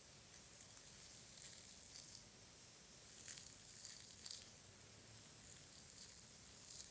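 Faint, soft, wet crackling clicks of close-miked ASMR mouth sounds, coming in small clusters with the busiest stretch around the middle.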